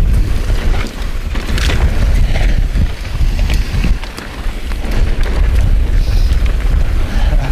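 Heavy wind rumble on the microphone as a mountain bike descends a dirt trail at speed, with its tyres running over the dirt and a few knocks and rattles from the bike.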